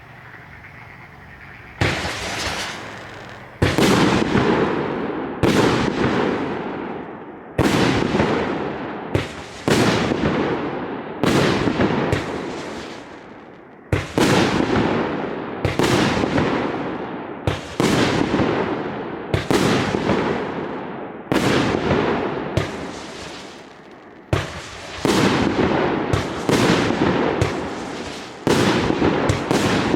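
A 25-shot fireworks cake with 30 mm tubes firing shot after shot, starting about two seconds in. Each shot is a sharp bang followed by a noisy tail that dies away over about a second. The shots come every one to two seconds, sometimes closer together.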